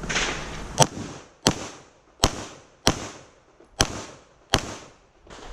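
A string of pistol shots, six sharp reports about three-quarters of a second apart with a short pause before the fifth, each trailing a brief echo.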